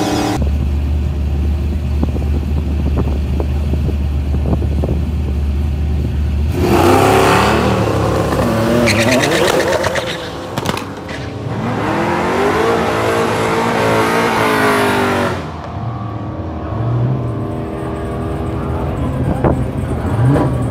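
Mitsubishi 3000GT drag car launching and running down the strip, its engine pitch climbing and breaking as it shifts up through the gears. A loud low steady rumble comes first, for about six seconds.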